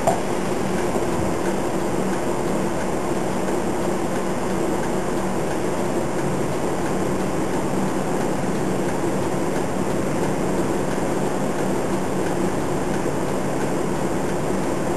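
City bus's diesel engine idling, heard inside the cabin: a steady, even hum.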